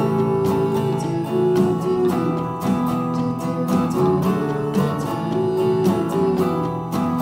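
Live rock band playing: electric guitar chords and electric bass over a steady drum-kit beat.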